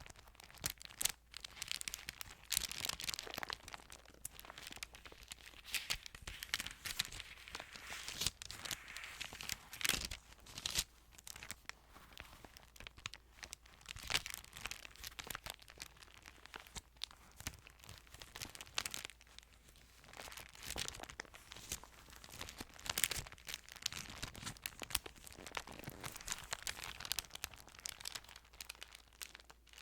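Thin Bible pages rustling and crinkling as they are handled and turned. The sound comes in irregular bouts with many sharp crackles.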